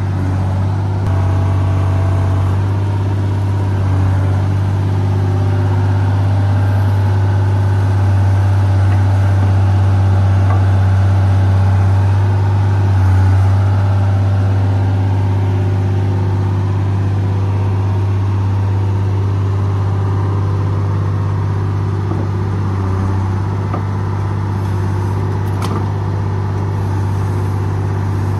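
Diesel engine of a 125B tracked excavator running steadily under load while it digs with its bucket, a constant low drone, with a single sharp knock near the end.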